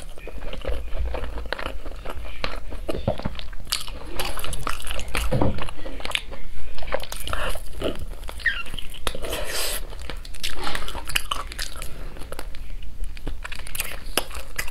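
Close-miked biting and chewing of sauce-glazed roast chicken wings, with many short crisp crunches following one after another.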